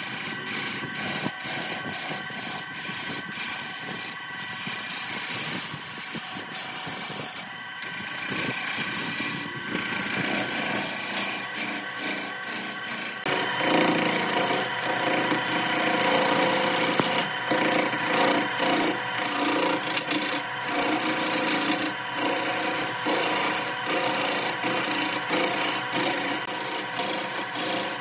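Turning gouge cutting into a large wooden blank spinning on a wood lathe: a rough scraping cut over a steady whine, broken by many brief gaps where the tool eases off. The cut becomes louder about halfway through.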